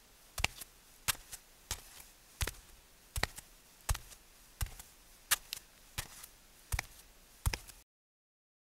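A series of sharp clicks or knocks, evenly spaced about three-quarters of a second apart, cutting off abruptly near the end.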